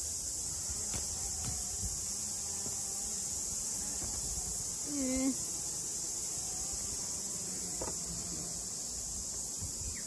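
Steady high-pitched insect chorus drones on throughout. A brief low chirping call sounds about five seconds in.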